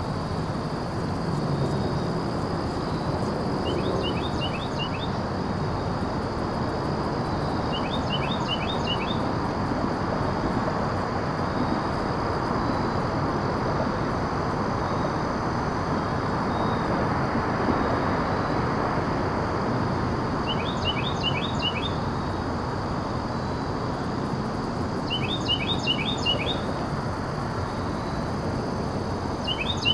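Steady rush of wind in the trees, with a bird calling five times in short bursts of quick, high chirps.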